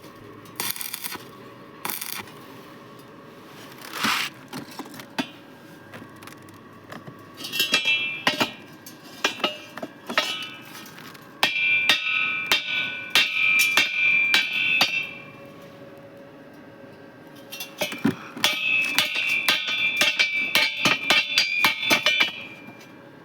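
Metal hammering on steel roofing sheet: scattered single knocks, then two runs of rapid strikes about 11 and 18 seconds in, each lasting several seconds, with the sheet ringing in a high tone.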